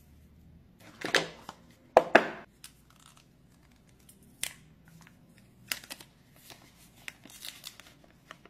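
Packaging being handled during a smartphone unboxing: two loud rustling, scraping noises about one and two seconds in, then lighter crinkles and clicks as the printed plastic protective film is peeled off the phone.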